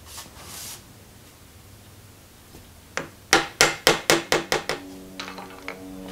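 Hammer tapping a screwdriver held against the end of a 1950 Wells Index Model 40 milling machine's table to drive out a pin: one light tap, then about seven quick metal strikes at roughly four a second, then a few lighter taps. Background music with steady held notes comes in near the end.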